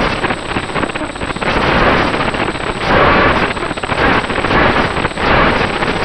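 Audio from a Runcam 2 action camera's built-in microphone on a flying multirotor drone: a loud, harsh rushing noise with a thin high whine, swelling and dipping unevenly, drowning out the motors and propellers. The owner has heard this fault on two units of the camera and asks whether it is a hardware or firmware problem.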